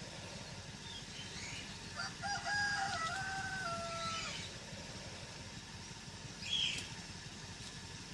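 A rooster crowing once, a long call that steps down in pitch about two seconds in. A short, higher call follows near the end.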